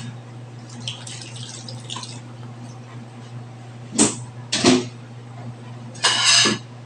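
Ceramic plates knocking and rattling as one is pulled from a wire dish rack: two sharp clinks about a second apart, then a longer rattle near the end. A steady low hum runs underneath.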